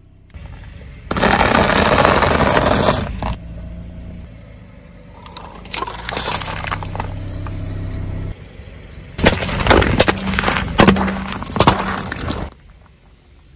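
Car tyre rolling over objects on asphalt and crushing them one after another, with the car's engine running low underneath. A loud rush of noise lasts about two seconds near the start. Plastic jelly cups crunch and pop about six seconds in, and near the end a drink can is crushed with a run of sharp cracks.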